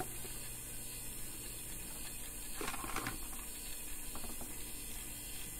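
Small DC gear motors of a robot car kit running steadily in the background, a low even hum, with a brief handling sound about three seconds in.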